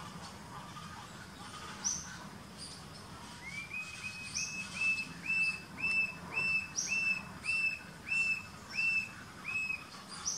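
Coppery-chested jacamar calling: a series of about a dozen short, clear, whistled notes on one pitch, starting about three and a half seconds in, quick at first and then settling to about two a second.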